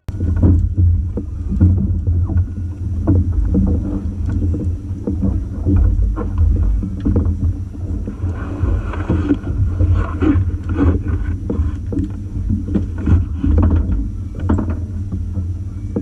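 Wind buffeting the microphone in an uneven low rumble, with water slapping the hull of a small fishing boat and scattered knocks on deck.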